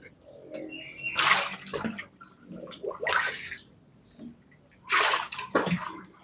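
Water splashing and sloshing in repeated bursts, about every two seconds, as a hand-turned Wirtz spiral pump (a coil of clear hose on a bicycle wheel) turns slowly in its water tub.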